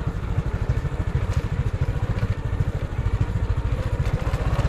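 Small motorcycle engine running steadily at low speed, a fast even low pulsing of its firing strokes.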